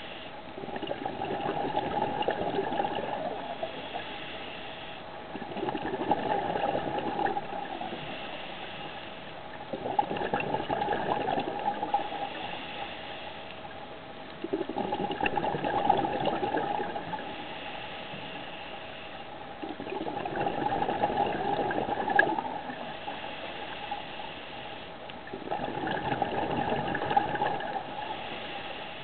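Scuba diver breathing through a regulator, heard underwater: a burst of exhaled bubbles about every five seconds, six in all, with quieter hiss between the bursts.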